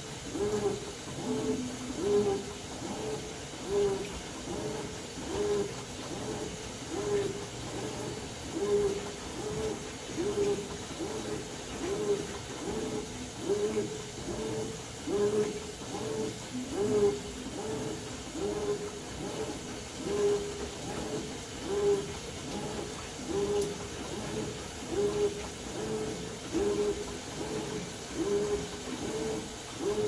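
Brastemp BWK14 top-load washing machine agitating a load of towels in water: the motor whirs in short rhythmic strokes, a little more than one a second, as the agitator turns back and forth, with the water and towels sloshing.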